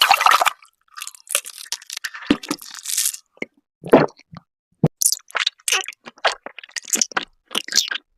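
A person biting and chewing jelly candy close to the microphone, in quick irregular bursts separated by short silences.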